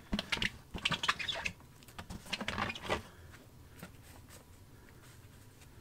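Shredded cardboard rustling and crackling as a gloved hand spreads it over the top of a worm bin, a quick run of short crackles in the first three seconds, then only a few faint ticks.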